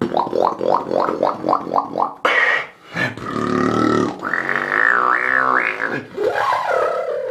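A beatboxer making a string of mouth sounds. First comes a run of about nine quick, even, sweeping strokes, then a short hiss and a low buzzing growl. After that a high tone wavers up and down, and near the end a rising, wavering tone comes in.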